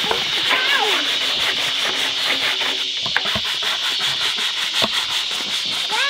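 A scrub sponge rubbing back and forth over a washing machine's plastic tub in repeated scrubbing strokes, over a steady high-pitched drone.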